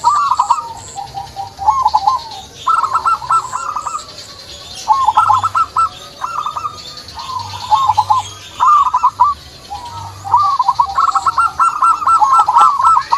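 Zebra doves (perkutut) cooing in quick rolling phrases of short notes, one phrase every second or two and almost without a break near the end. Fainter high chirps come from other small birds.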